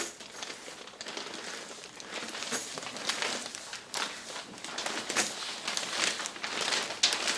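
Sheet of clear Strata Glass window vinyl being handled and spread out, with irregular crinkling and rustling.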